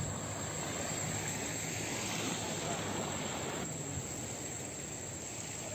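Steady rushing noise of fast-flowing floodwater, thinning out about two-thirds of the way through.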